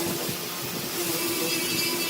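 A machine running steadily, with a constant hum and an even hiss.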